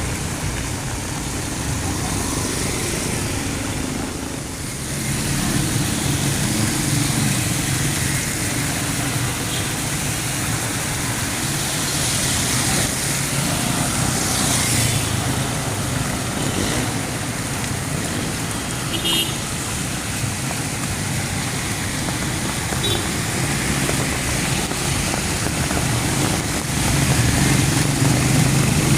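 Heavy rain falling steadily with road traffic passing in the wet: car and motorbike engines running under the constant hiss of the rain.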